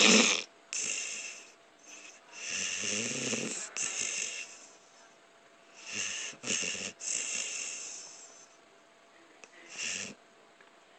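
A man snoring very loudly in his sleep, a series of rasping snores, one every few seconds. The loudest comes right at the start.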